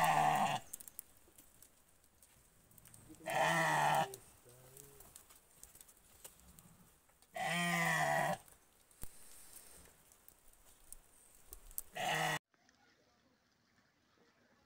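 Sheep bleating four times, a few seconds apart, the last call short.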